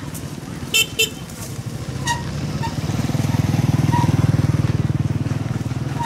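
Two quick horn beeps about a second in, then a small motorbike engine passing close by, swelling to its loudest a little past the middle and fading.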